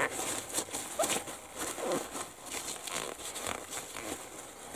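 Paper towel crinkling and rubbing in irregular scratchy strokes as it is wiped.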